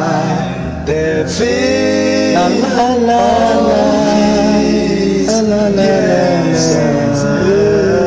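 A male voice singing a slow gospel hymn over instrumental accompaniment, with long held notes.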